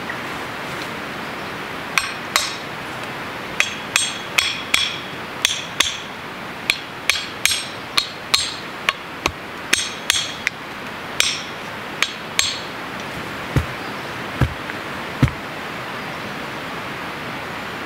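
Back of a hatchet striking the spine of a blade set into the top of a wooden pole, driving it down into the wood: about twenty sharp metallic clinks, roughly two a second, each with a brief ring. Near the end come three dull low thuds, over a steady background hiss.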